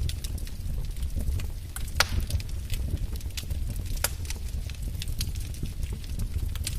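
Wood fire crackling, with irregular sharp pops and snaps over a steady low rumble of flames. One louder pop comes about two seconds in.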